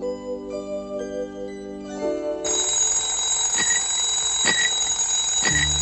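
Soft plucked-string music, then about two and a half seconds in an alarm clock starts ringing, a steady high ring that carries on, with a few short knocks over it.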